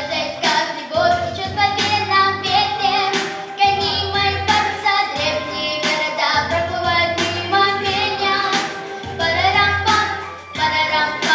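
A young girl singing a song over a backing track with a steady beat.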